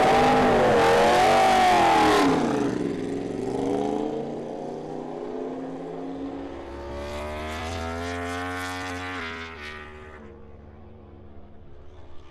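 Yamaha YZR-M1 MotoGP bike's inline-four engine revving hard, its pitch rising and falling, then dropping away after about two seconds. About seven seconds in, a racing engine is heard again at high revs with a slowly rising note, cutting off about ten seconds in.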